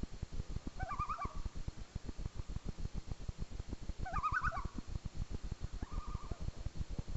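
Common loon calling: two short bursts of quick rising-and-falling notes about three seconds apart, then a briefer steady note near the end, over a low irregular rumble.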